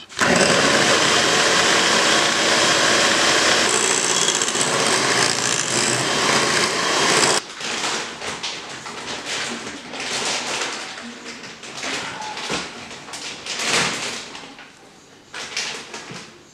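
Electric hand mixer running steadily, its beaters whipping cream with cocoa powder and icing sugar into chocolate whipped cream. It stops suddenly about seven seconds in. Then come irregular scrapes and knocks of a silicone spatula working the thick cream in the glass bowl.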